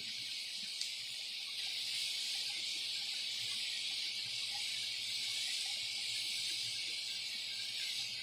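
Pork rib steaks sizzling steadily on a very hot flat-top griddle, a constant even hiss.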